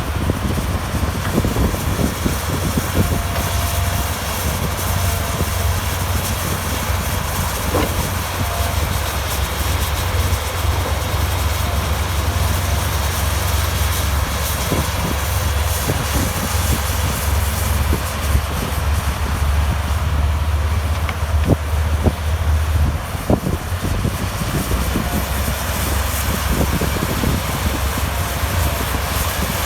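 Heavy construction machinery's diesel engine running with a steady low drone, with scattered knocks and clanks from the machine at work; the engine note shifts about three-quarters of the way through.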